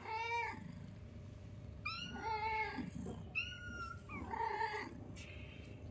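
Young kittens meowing: about four short, high-pitched mews, spaced a second or so apart.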